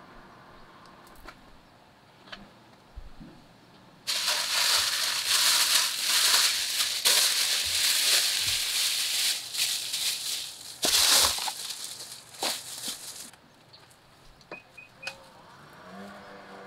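Plastic shopping bags rustling and crinkling as they are handled and lifted out of a car's trunk, loud for about nine seconds starting about four seconds in, then a few light clicks.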